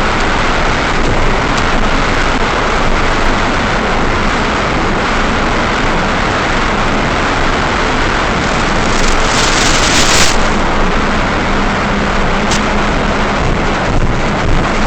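Steady loud rushing wind noise over the FPV glider's onboard microphone in flight, with a faint steady hum under it and a short louder hiss about nine to ten seconds in.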